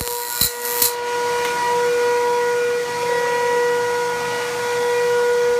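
Homemade Tesla coil spark gap crackling in rapid snaps, which stop about a second in. A steady high-pitched whine with overtones from the running apparatus carries on unchanged.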